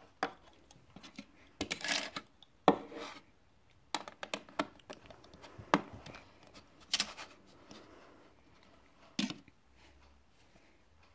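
Plastic Lego bricks clicking and clattering as they are handled: picked from a loose pile on the tabletop and pressed onto a baseplate. Irregular sharp clicks mixed with short scrapes of pieces sliding on the table.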